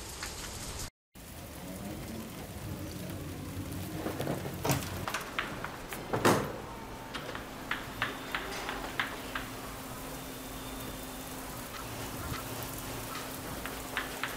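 Footsteps on a hard floor over a steady room hiss: a louder thump about six seconds in, then light steps at about two a second for a few seconds. A faint steady hum sets in at the same time.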